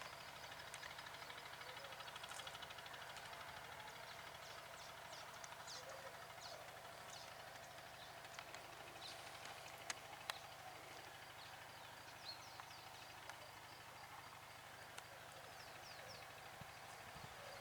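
Morning birdsong: many short, high, falling chirps over a steady, faint chattering chorus of birds, with two sharp clicks about ten seconds in.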